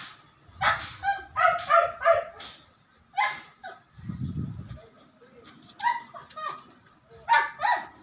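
A dog barking in several bouts of short barks: a quick run near the start, then single barks and pairs later on. About four seconds in, a brief low rumble of wind hits the microphone.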